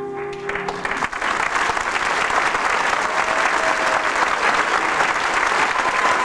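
Theatre audience applauding, the clapping swelling about a second in as a held musical chord dies away.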